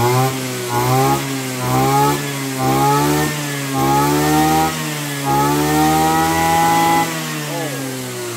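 Kawasaki TA33 two-stroke brush cutter engine with a 37 mm cylinder, its throttle blipped over and over so the revs climb and fall back about once a second. It is then held at high revs for about two seconds before dropping back to idle near the end.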